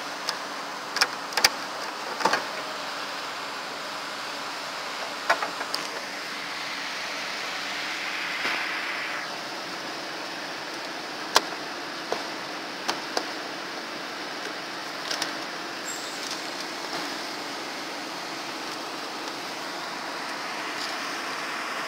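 Scattered sharp clicks and knocks of hands handling plastic parts and wiring around a car's headlight bulb socket, over a steady background hiss.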